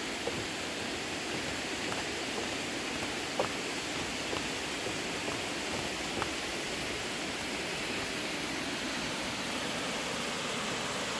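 Waterfall rushing in a steady, even roar of water. A few faint clicks sound in the first half.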